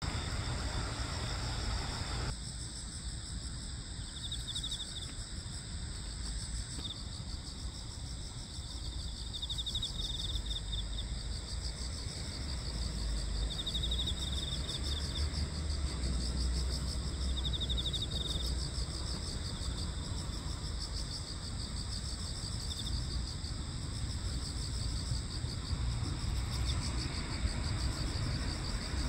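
A chorus of night insects, crickets among them, trilling steadily at several high pitches, with one insect adding short bursts of trilling every few seconds. A low rumble sits underneath.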